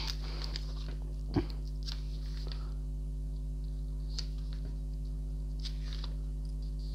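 Pages of a paper instruction booklet being turned and handled: soft paper rustles and a few light taps, the sharpest about a second and a half in. Under them runs a steady low electrical hum.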